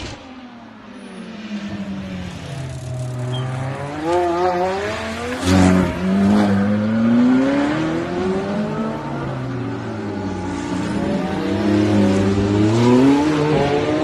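Several Ferrari sports cars driving past one after another, their engines revving, with the engine pitch rising and falling as each car goes by. There is a short loud burst about five and a half seconds in.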